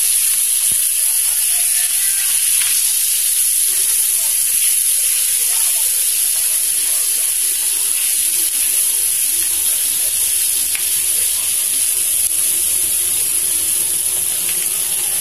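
Chicken pieces sizzling steadily in hot oil in a flat pan, a constant high hiss with light clicks and crackles here and there as the pieces are turned.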